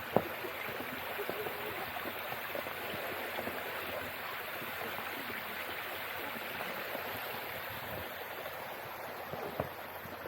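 Steady rushing of a mountain stream, with a single sharp click just after the start.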